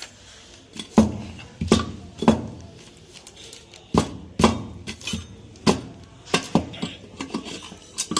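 Irregular metallic knocks and clinks, each with a short ring, as the cast-iron cylinders of a 2 HP air compressor are worked loose and taken off.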